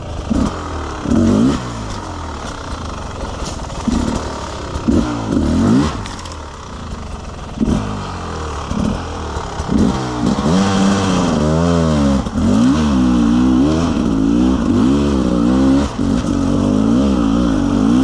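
Beta 300 RR two-stroke enduro motorcycle engine revved in short throttle blips. From about ten seconds in it is held high, with the revs swinging quickly up and down, and it settles to a steadier high rev near the end.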